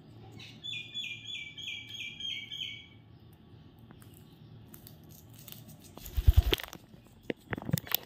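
A parakeet calling, a quick run of about seven sharp, slightly falling notes, about three a second. Near the end come several loud knocks from the phone being handled.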